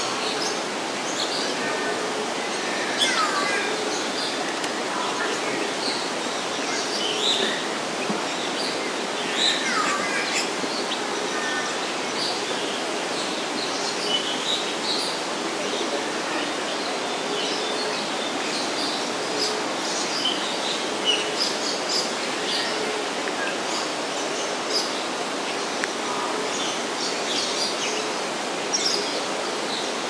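Forest ambience: a steady hiss of background noise with many short, high bird chirps and calls scattered throughout, including two downward-sliding whistled calls, one near the start and one about a third of the way in.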